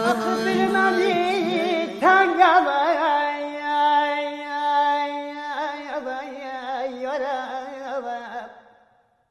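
A man singing a slow, heavily ornamented Iranian regional folk melody, over a steady low drone for the first two seconds. The sung phrase fades out near the end.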